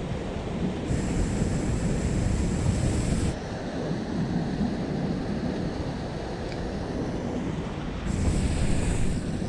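Wind buffeting the microphone over the steady rush of river water, a low churning rumble without pause. A faint high whine comes in twice.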